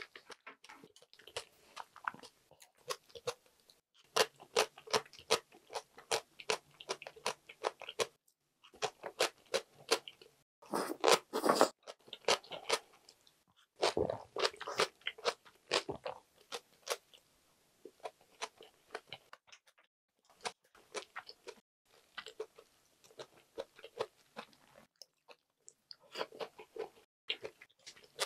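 A person chewing and biting food in bouts, with runs of quick, crisp mouth clicks and short pauses between them; the loudest stretch comes a little before the middle.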